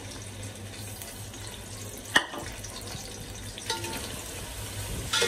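Sliced onions sizzling in hot oil in an aluminium pot, a steady hiss, with one sharp clink about two seconds in. Near the end a steel spoon scrapes and clinks against the pot as the onions are stirred.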